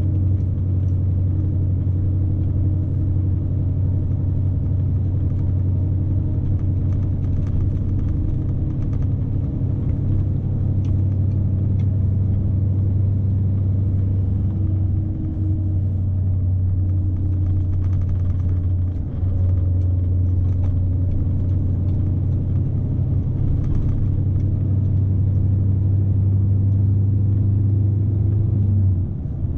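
Scania S520 truck's V8 diesel engine droning steadily, heard from inside the cab while the truck is driven loaded to about 44 tonnes. The level dips briefly about two-thirds of the way through and drops again near the end.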